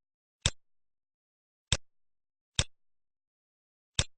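Computer mouse clicks, four in irregular succession, each a sharp press followed by a fainter release tick, with silence between them.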